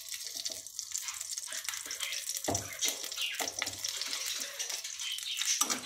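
Ghee sizzling as it melts in a hot kadhai: a steady crackling hiss, with a few louder pops.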